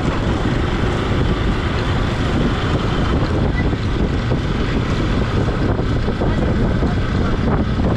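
Wind rushing steadily over the microphone of a moving motorcycle, with the engine and road noise under it.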